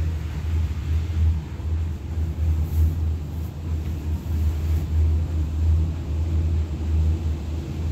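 Low, unevenly pulsing rumble heard from inside a detachable gondola cabin as it rolls through the terminal station, its carriage driven along the station's rows of tyres.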